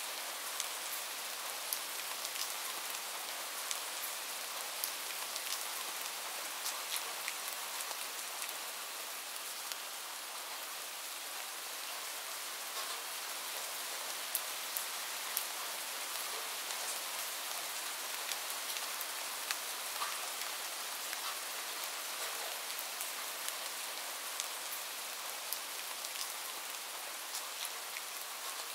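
Light rain falling steadily: a soft, even hiss with many separate drop ticks scattered through it.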